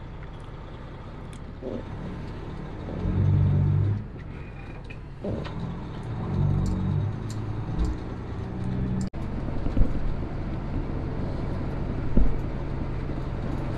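Semi truck's diesel engine heard from inside the cab as the truck pulls away and gets under way. The low engine note swells and drops back several times as it picks up speed.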